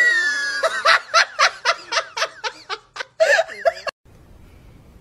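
High-pitched laughter from a person, a rapid run of short giggling pulses about four a second, cut off abruptly about four seconds in.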